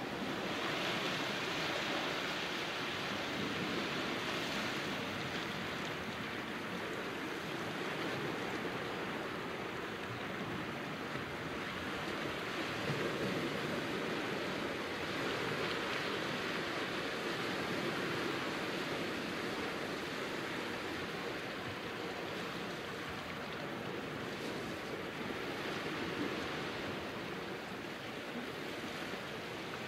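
Small sea waves washing over a rocky, pebbly foreshore: a steady rush of surf that swells and eases gently.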